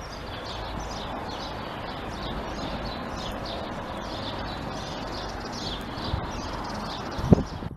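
Many small birds chirping in the trees, quick short downward chirps over a steady outdoor background noise. A single thump near the end.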